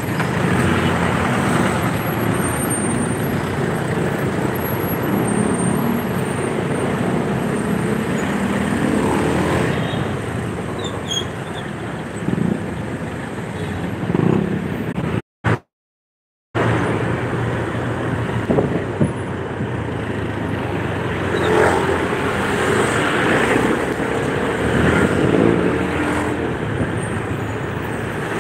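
Road traffic heard from a moving motorcycle: the bike's engine and the surrounding cars and motorcycles running in slow traffic, a steady mix of engine and road noise. The sound drops out completely for about a second midway.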